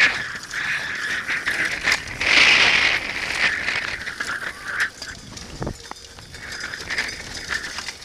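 Downhill mountain bike at speed on a dirt forest track: the bike rattling and knocking over bumps, the tyres rushing over dirt and leaves, and wind buffeting the helmet-camera microphone, with a louder rush about two to three seconds in.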